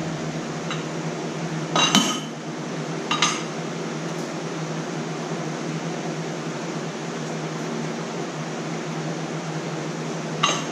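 Steady fan hum in a small room, with hard objects clinking on a workbench: a sharp clink about two seconds in, a lighter one a second later, and another near the end.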